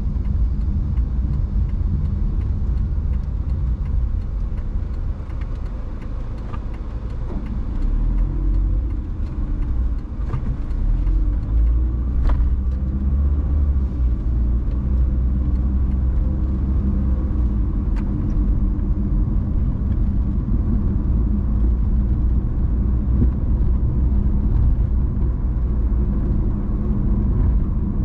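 Car driving along city streets: a steady low road and engine rumble, with a couple of brief faint clicks.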